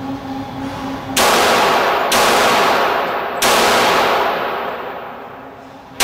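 Three shots from a Heckler & Koch USP Tactical .45 pistol, each starting suddenly and trailing off in a long fading tail. The last one fades over two seconds or more.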